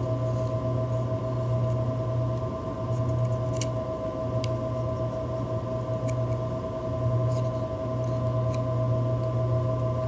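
Steady low electrical hum with a thin steady whine above it, and a handful of faint light clicks as the stainless steel Leatherman Blast multi-tool's implements are handled.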